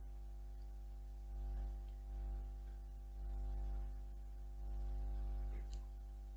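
Oil pastel crayon rubbed over paper to fill in colour: four soft, faint swells of rubbing, each about a second long, over a steady electrical hum.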